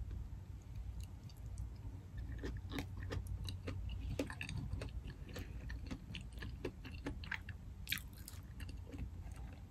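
A person chewing a mouthful of deshelled seafood boil, heard as faint, irregular small clicks and smacks, with a slightly louder one about eight seconds in.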